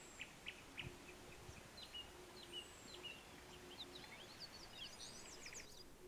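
Small birds chirping faintly, scattered short high notes and a few down-slurred whistles, turning into a quicker twittering run near the end.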